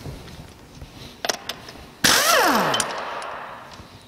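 Cordless impact wrench at a truck's front wheel: a few light clicks, then about two seconds in a sudden loud burst of its motor whose pitch falls steeply as it winds down, the sound fading over the next couple of seconds.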